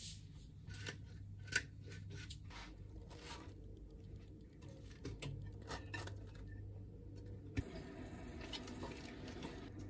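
Faint kitchen handling sounds: quick clicks and scrapes of salt and pepper being ground over avocado and muffins being lifted in a pan, over a low steady hum. A faint even hiss comes in about two-thirds of the way through.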